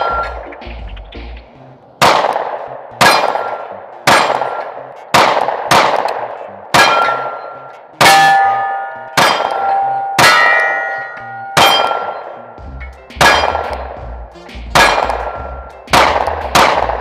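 A 9mm Glock 43X MOS pistol firing about fourteen shots of MagTech 115-grain range ammo, roughly one a second and slightly uneven, from a 15-round PSA Dagger Micro magazine. Several shots are followed by a short metallic ring. The pistol cycles through without a malfunction.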